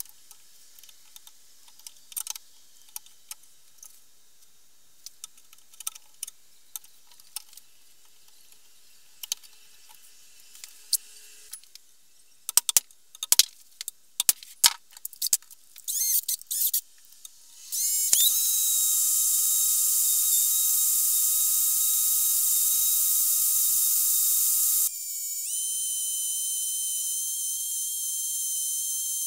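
End-cutting pincers working at an old rivet in a steel axe head give scattered small metal clicks and scrapes. A quick run of loud, sharp metal clicks follows as a punch marks the spot. Then an electric drill starts and runs with a steady high whine, boring into the steel; its pitch shifts and the level drops a little near the end.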